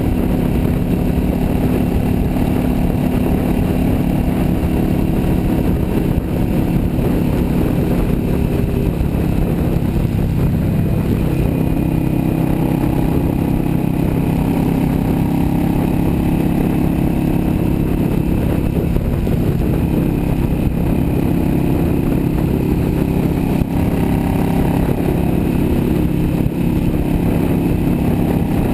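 Yamaha V Star 650 Custom's V-twin engine running steadily at highway cruising speed, with its pitch stepping up slightly about a third of the way in. It is heard over a constant rush of wind and road noise.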